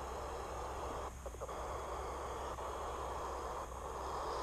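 FM radio static hissing from a ham radio receiver tuned to the SO-50 satellite downlink, dropping out briefly twice, with a low hum underneath.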